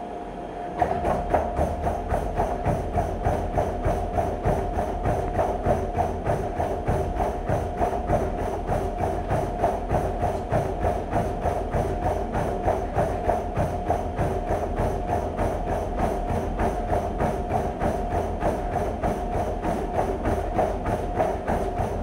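Treadmill running at sprint speed: a steady motor whine with the belt hissing underneath. From about a second in come rapid, even footfalls of a runner sprinting on the belt.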